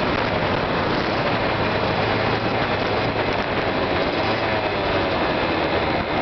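A Kawasaki KX85's two-stroke single-cylinder engine running while being ridden, largely buried under steady wind and road noise on an onboard microphone.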